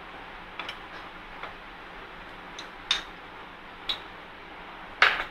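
Wooden spatula knocking against an aluminium pan of milk and coconut being stirred: several short sharp taps at uneven intervals, the loudest about five seconds in, over a steady hiss.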